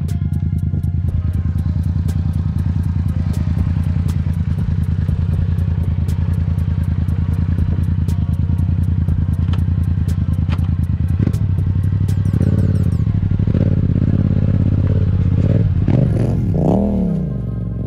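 Yamaha FZ-07's 689 cc parallel-twin engine idling steadily for about twelve seconds, then pulling away on the trail with changing throttle. Near the end it revs up and drops back.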